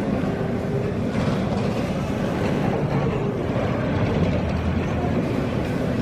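Steady low rumble of an approaching passenger train, mixed with the wash of wind and rain.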